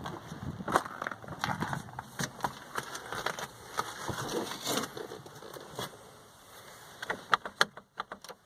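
Smart Fortwo door handle clicking and knocking as it is pulled again and again without releasing the latch, with a quick run of sharp clicks near the end. The handle does nothing because it has come loose from its release cable inside the door.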